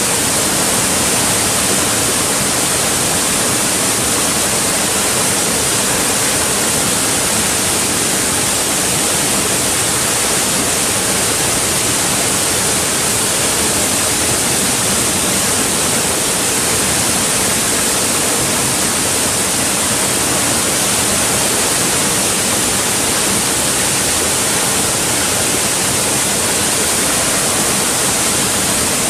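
Mountain valley stream rushing steadily over rocks, a constant even hiss of running water with no pauses.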